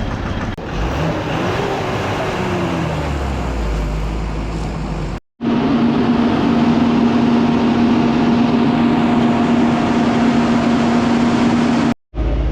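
Motor vehicle engines: one engine changes pitch as it passes or revs, then after an abrupt cut a heavy engine runs at a steady, droning speed.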